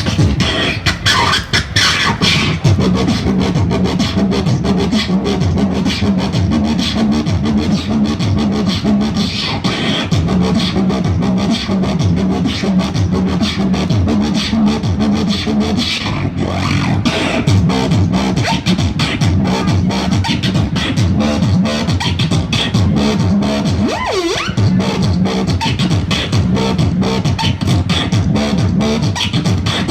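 A girl beatboxing: a fast, continuous stream of mouth-made drum clicks and snares over a low hummed bass tone, with one quick vocal pitch sweep about three quarters of the way through.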